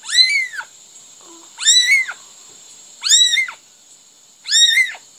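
Young kitten mewing: four high-pitched mews, each rising then falling in pitch, about a second and a half apart.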